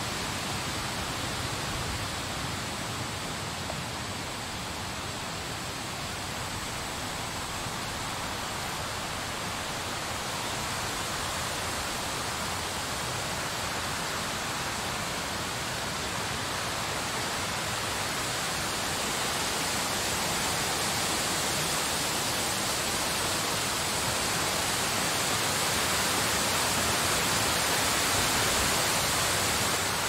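Wind of a snowstorm blowing as a steady hiss with no distinct gusts or tones, slowly growing louder toward the end.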